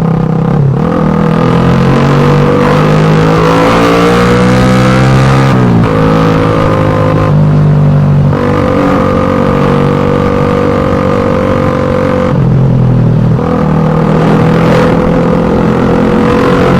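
Suzuki Satria FU 150 motorcycle's single-cylinder four-stroke engine and exhaust being revved hard: the revs climb for a few seconds, fall away suddenly about six seconds in, then are held high and steady with brief drops around eight and twelve seconds in.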